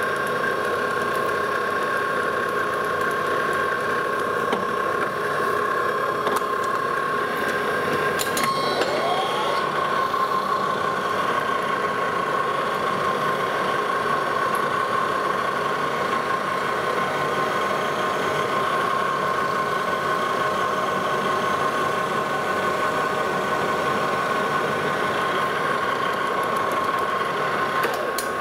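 Lodge & Shipley engine lathe running steadily, its gearing giving a constant whine over a mechanical hum, with one sharp click about eight seconds in.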